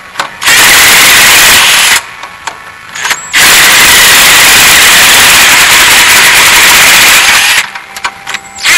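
DeWalt 18-volt cordless impact driver hammering on a bolt, running in two long bursts: about a second and a half, a short pause, then about four seconds.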